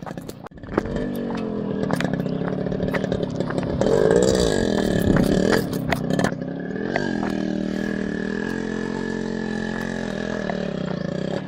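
Yamaha RX 100's two-stroke single-cylinder engine revving hard under load as the motorcycle climbs a hill, its pitch rising and falling and loudest near the middle before settling into a steadier drone.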